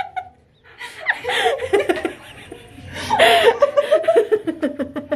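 Girls laughing loudly in bursts, with a brief pause about half a second in.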